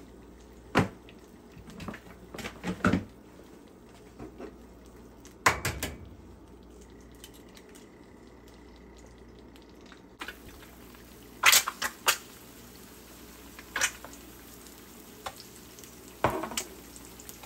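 Egg whites frying in a pan with a soft sizzle, while a utensil clinks and knocks against the pan and dishes several times.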